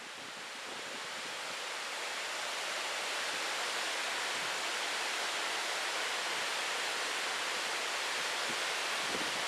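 Rain-swollen waterfall: a steady, even rush of falling water that fades in over the first three seconds.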